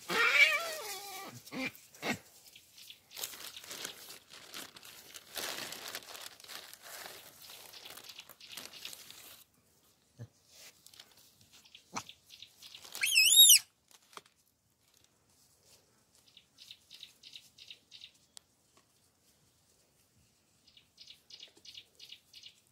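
Outdoor sounds with no speech: crackling and rustling for about the first ten seconds, with a short falling call at the very start. About thirteen seconds in comes a loud, brief, wavering high call, and later two bursts of rapid, high chirping.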